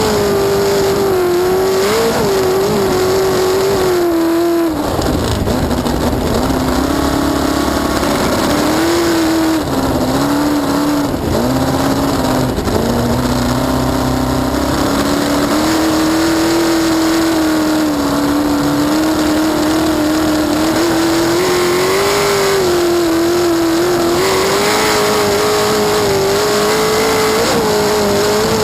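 Cracker box race boat's inboard V8 engine running hard, heard from on board. The engine note drops sharply about four to five seconds in, stays lower and unsteady for about ten seconds, then climbs gradually back to a high, steady pitch.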